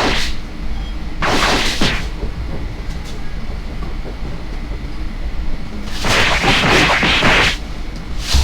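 Added cartoon-fight sound effects: a steady low rumble, broken by two loud rushing whooshes, one about a second in and a longer one about six seconds in.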